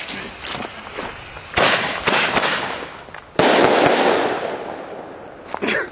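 Lit firework's fuse hissing, then a sharp bang about one and a half seconds in with a few cracks after it, and a second, louder bang about two seconds later that fades out slowly.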